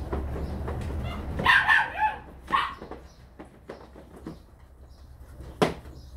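Puppies yapping in play: a cluster of short high yaps about a second and a half in and another a second later, with light clicking, which fits claws on a tile floor. A single sharp knock near the end.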